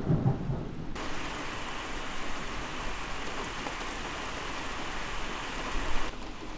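Steady hiss of heavy thunderstorm rain. It cuts in abruptly about a second in and stops abruptly near the end.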